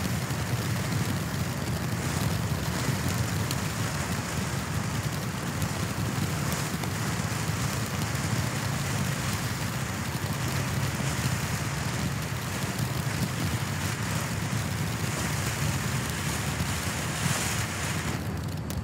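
Black Cat "SHHH!!!" ground firework burning, spraying sparks: a steady rushing hiss with no loud bangs. The hiss thins near the end.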